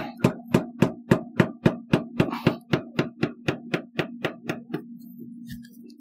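Steady mechanical clicking, about four clicks a second, slowing slightly and stopping about five seconds in, over a faint steady low hum.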